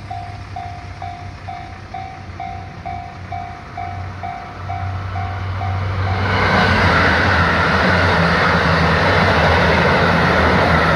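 A railway level-crossing warning bell dings steadily, about two or three times a second. About six seconds in, a train passes close by and its rumble and wheel noise grow loud, drowning out the bell.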